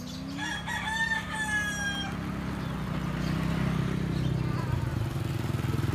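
A rooster crows once, one long call of about a second and a half that falls slightly at the end. Under it an engine drones steadily throughout.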